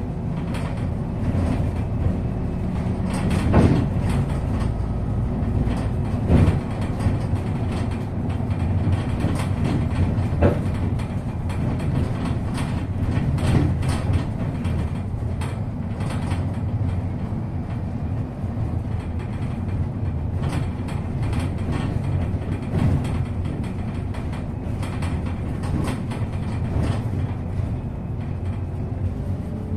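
Inside a MAZ-215 articulated city bus on the move: the engine runs steadily under the drone of the rolling bus, and the body rattles. A few sharp knocks come in the first half.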